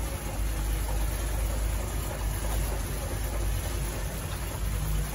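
1958 Pontiac Bonneville's V8 idling steadily at a low pitch, still cold shortly after a cold start.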